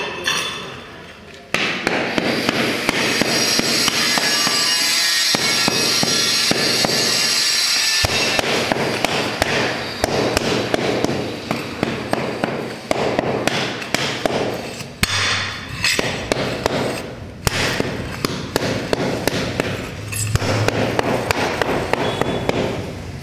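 Steel trowel scraping and knocking on a marble floor inlay, with many short scrapes and knocks. A steady, dense noise fills the first several seconds.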